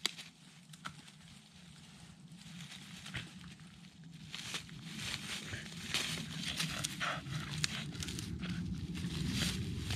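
Border collie chewing and cracking a wooden stick, with sharp snaps of wood and dry leaves crackling under it. In the second half a low growl builds as the dog gets up and shakes the stick.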